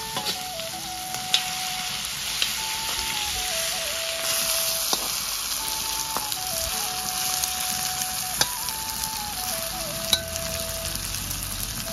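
Food sizzling steadily as it fries in a pan, with a few sharp knocks of the stirring utensil against the pan. A simple background melody plays over it.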